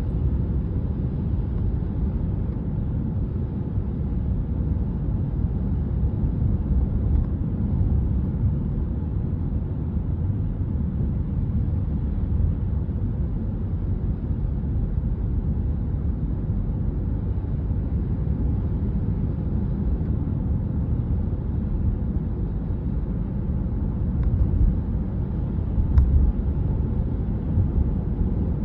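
A car's engine and tyre noise heard from inside the cabin while driving: a steady low rumble, with one sharp click near the end.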